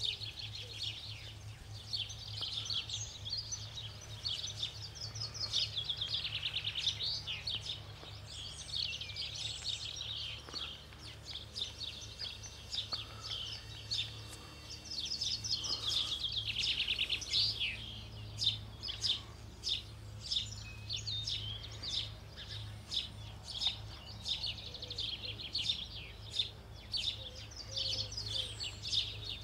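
Garden songbirds singing, with rapid trills and chirps. In the second half one bird repeats a short note about twice a second. A steady low hum runs underneath.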